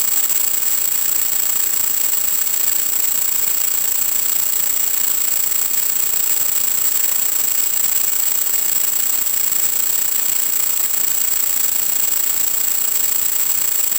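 Steady static hiss with a constant thin high-pitched whine from the audio channel of an analog 1.2 GHz FPV video link.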